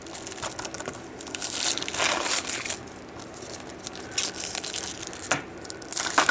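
Plastic shrink-wrap being torn and crinkled off a Blu-ray case, in uneven crackling bursts.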